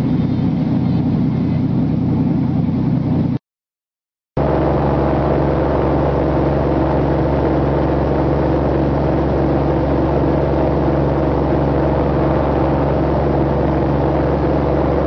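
Large tour speedboat's engines running steadily at speed, with the rush of water from the wake. The sound drops out completely for about a second near the start, then picks up again.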